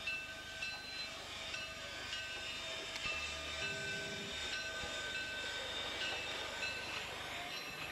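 Bigjigs wooden toy train rolling along plastic track with a steady rattle of wheels and a few clicks, under a simple melody of held notes.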